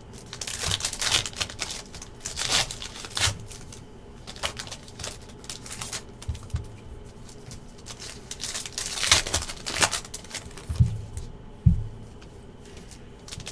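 Foil trading-card pack wrappers crinkling and rustling as packs are handled in bursts, with two soft knocks on the tabletop near the end.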